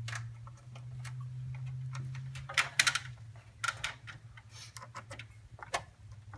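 Irregular small metallic clicks from a hand screwdriver driving a screw through the motherboard into a case standoff, over a steady low hum.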